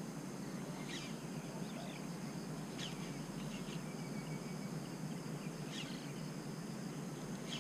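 Outdoor ambience: a steady high insect drone with a few faint, short bird chirps about one, three and six seconds in.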